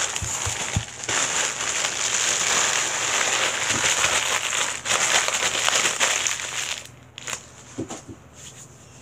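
Plastic packaging being crumpled and crinkled by hand, close to the microphone, for about seven seconds. It stops near the end, leaving a few light handling ticks.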